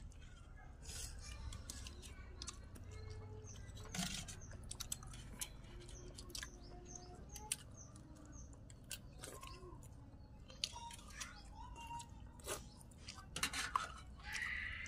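People eating a meal from a shared metal tray: chewing, with scattered short clinks and scrapes of spoons against the tray.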